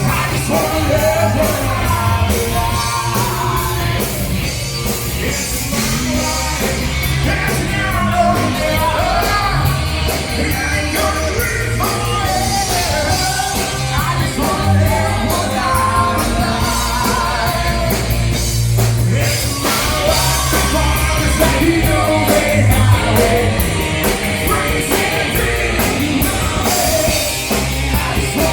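Live rock band playing with a singer, loud and steady, with a heavy bass line.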